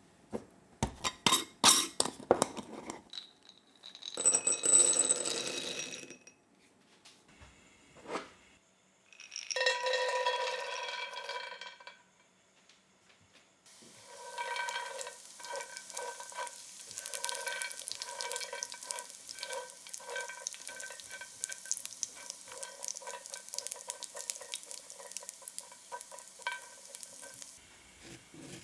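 A jar of peanuts is handled and opened with sharp clicks, and peanuts are poured out with a ringing rattle. From about halfway, raw peanuts sizzle steadily in oil in a cast-iron skillet while a spatula stirs them with many small knocks on the iron.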